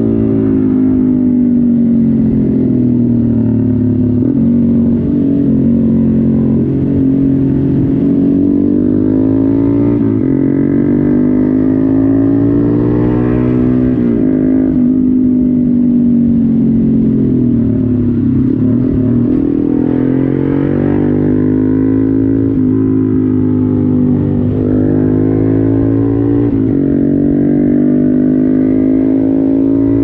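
Honda MSX125 (Grom) single-cylinder four-stroke engine running under way on the road. Its revs dip and climb back several times as the throttle is eased and opened again.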